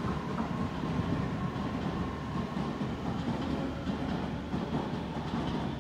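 Tobu Noda Line electric commuter train moving slowly out of the station, a steady rumble of its wheels and running gear on the rails. A faint whine fades away about a second in.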